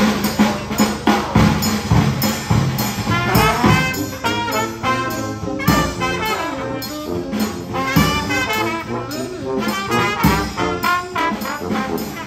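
Jazz music led by brass horns over a steady beat.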